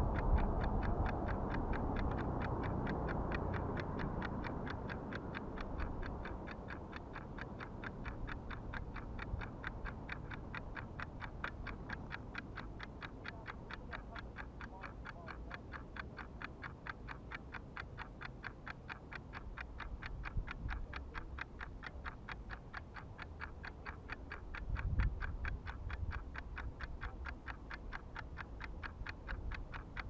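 Fast, perfectly even mechanical ticking, like clockwork, goes on throughout, over low rumbling wind noise on the microphone that swells near the start and again about 25 seconds in.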